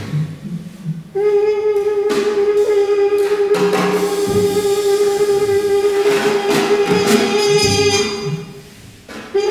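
Trumpet holding one long steady note for about seven seconds over scattered drum and cymbal strokes in improvised jazz. The note fades out near the end, and after a brief lull new trumpet notes start.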